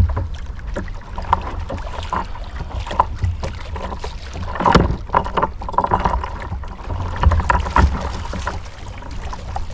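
Choppy water lapping and slapping against a kayak hull, with wind on the microphone and a scatter of knocks and clicks as fishing line and rod gear are handled, busiest about halfway through.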